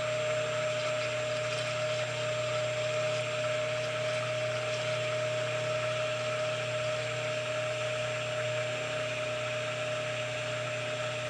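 Stick blender running steadily with a constant whine, its blade churning raw soap batter of lye and oils to bring it to trace. It cuts off suddenly at the very end.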